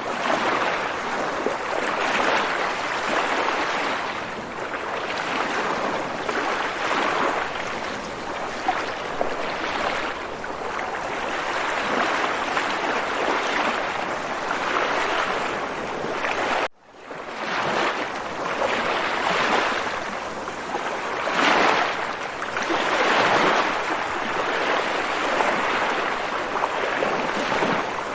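Water waves washing continuously, the noise swelling and ebbing every second or two. About 17 seconds in the sound cuts out abruptly for a split second, then comes back.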